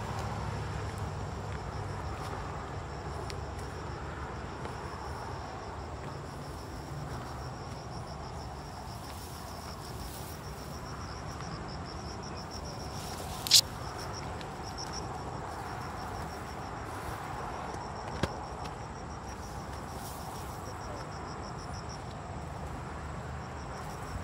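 Insects in the forest trilling in a fast, high-pitched pulsing buzz that swells in about five seconds in and fades near the end, over a low rumble. A single sharp click about halfway through is the loudest sound.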